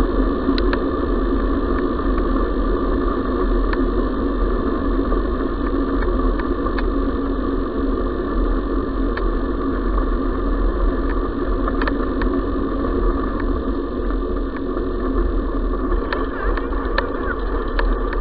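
Tyres of a dog-pulled scooter or bike rolling over a gravel path, heard as a steady rumble and hum with the rig and camera mount rattling, and occasional small ticks of grit.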